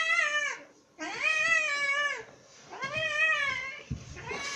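Hairless cat meowing in long, drawn-out yowls, three in a row with short gaps, in protest at a baby lying on top of it. A brief rustle follows near the end.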